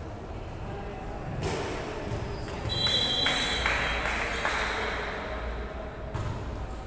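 Referee's whistle blown once, a short shrill steady tone about three seconds in, over the background voices and noise of a volleyball game in a hall.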